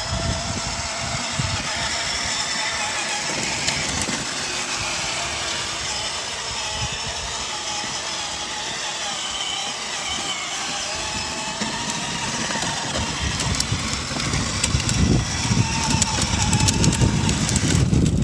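Battery-powered toy ride-on motorcycle driving along, its electric motor and gears giving a steady, slightly wavering whine as its plastic wheels roll over wet pavement.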